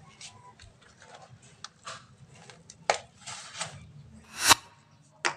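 Scattered light taps, clicks and scrapes of hands handling things at the drain hole. About four and a half seconds in, a louder rasping scrape swells and stops sharply.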